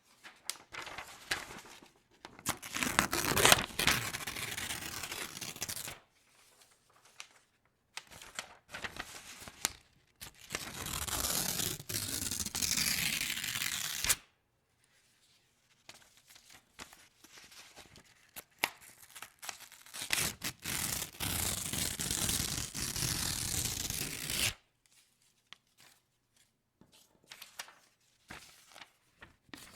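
Sheets of white printer paper being torn, three long slow rips of a few seconds each, with lighter rustling and crinkling of the paper between them.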